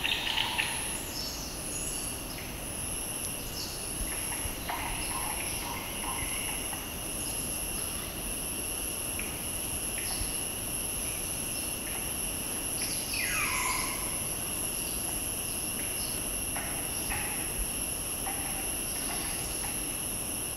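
Forest ambience: insects droning steadily at a very high pitch, pulsing at first and then continuous, with scattered bird calls, one a falling whistle about 13 seconds in.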